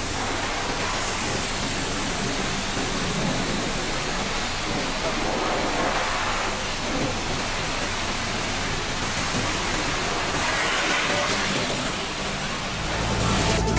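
High-pressure washer jet spraying the wooden plank floor and metal slatted walls of a livestock truck's box, a steady rushing of spray and splashing water. A low hum comes in near the end.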